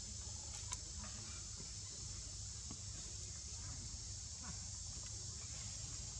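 Steady high-pitched insect chirring with a low rumble underneath, and a few faint short clicks about a second in and again in the middle.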